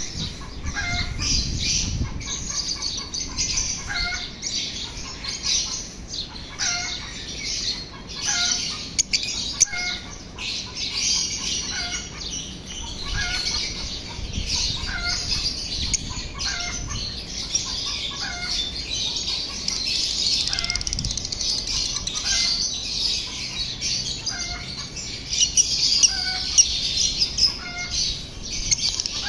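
Lovebirds chattering: continuous shrill chirping, with a shorter call repeating about every second or two.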